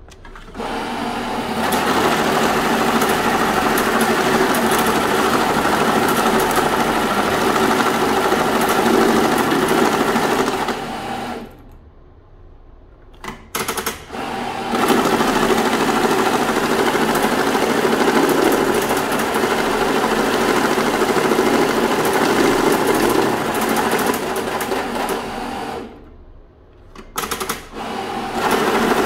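Banknote counting machine running US $100 bills through at high speed, a steady whirring rattle. It stops about eleven seconds in and again about twenty-six seconds in, each time a batch of 100 notes has been counted, with a few short bursts of sound before it runs on.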